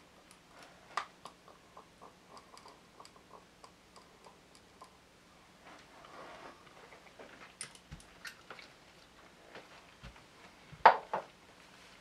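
Faint, scattered mouth clicks and lip smacks, with small clicks from handling a glass tincture dropper, as a hot-sauce tincture is squeezed into the mouth and tasted. A louder, sharp double sound comes near the end.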